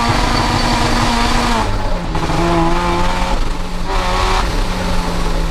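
Supercharged Mazda MX-5's 1.8-litre BP-ZE four-cylinder with a Rotrex C30-94 centrifugal supercharger, running hard through a decat exhaust while the tyres squeal in a skid. The engine note drops a step a little under two seconds in and then holds.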